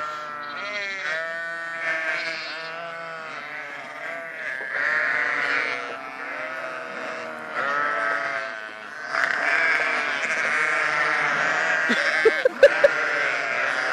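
A flock of sheep bleating, many calls overlapping one another without a break. A few short, sharp, louder sounds come near the end.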